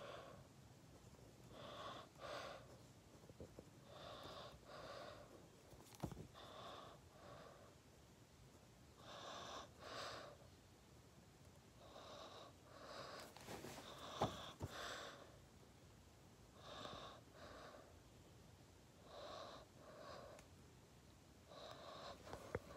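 Faint breathing close to the microphone, one breath about every two to three seconds, with a sharp tick about six seconds in and another about fourteen seconds in.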